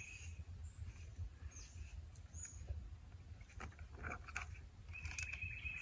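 Page of a large picture book being turned: a short papery rustle about four seconds in, over a low steady outdoor rumble with a few faint high chirps. A thin steady high tone comes in near the end.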